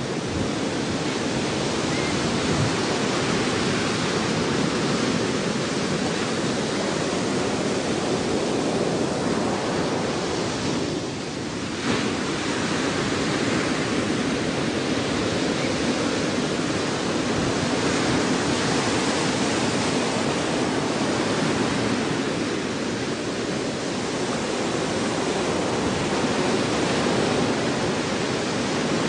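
Steady rushing noise with no distinct events, briefly dipping about eleven seconds in.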